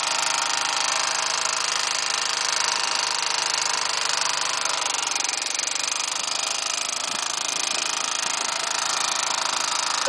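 Gasoline lawn-mower engine driving a long-tail boat propeller, running steadily under way with a fast, rattly note. It dips slightly in pitch and level about halfway through.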